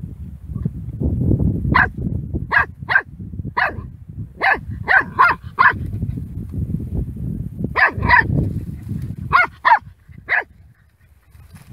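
A puppy barking at a snake: about a dozen short, high yaps in quick clusters, over a low rumbling background noise. The barking stops about a second before the end.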